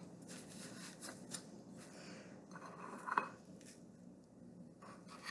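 A spoon scraping and clicking in a dish of ice cream: scattered light clicks, with a short, louder scrape about three seconds in.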